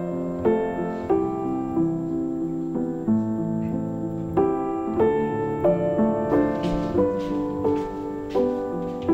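Background piano music with a steady pulse of notes and chords.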